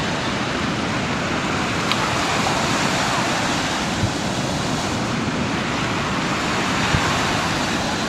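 Small sea waves breaking and washing up onto a sandy beach, a steady rush of surf, with three brief soft knocks along the way.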